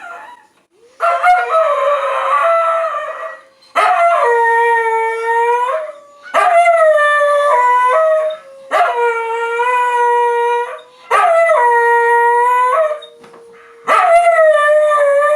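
A dog howling on command to wake a sleeping person. A rough first cry about a second in is followed by five long howls of about two seconds each, each rising at the start and dropping off at the end.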